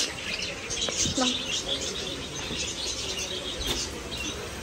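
A flock of small caged birds chirping, many short high calls overlapping without a break.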